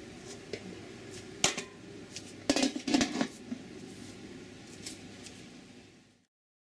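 Domed aluminium lid being put on an aluminium steamer pot: a click about a second and a half in, then a cluster of metal clanks about two and a half to three seconds in, over a steady low hum. The sound cuts off suddenly near the end.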